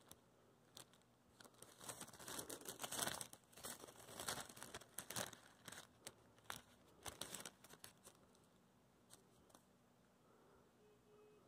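A thin white wrapping being handled and unfolded, crinkling and rustling in scattered bursts for several seconds, then fading to faint handling noise near the end.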